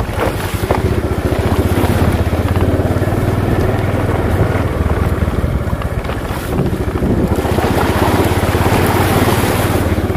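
Small motorcycle engine running steadily as the bike rides over a rough, muddy dirt track, with wind buffeting the microphone. The engine eases off briefly a little past halfway, then picks up again.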